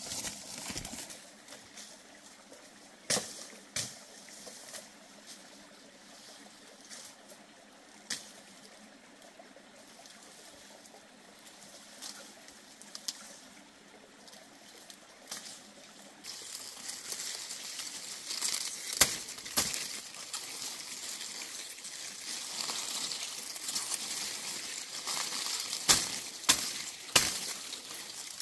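Rustling and scattered footsteps through undergrowth, then a bundle of long grass leaves rustling as it is gathered and hacked with a machete, with several sharp chops in the second half.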